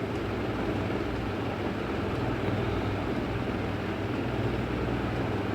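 Steady low rumble and hum of outdoor urban background noise, with no distinct event standing out.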